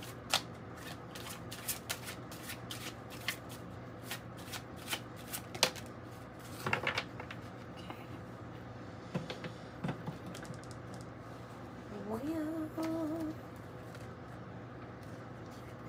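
Tarot cards shuffled by hand: a quick run of soft card flicks over the first six seconds, then a few scattered clicks and slaps as cards are laid on the table.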